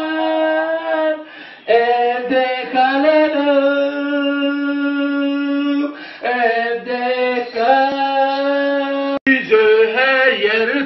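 A man singing into a handheld karaoke microphone played through a small portable speaker, holding long drawn-out notes with short breaks between phrases, the phrases turning quicker and choppier near the end.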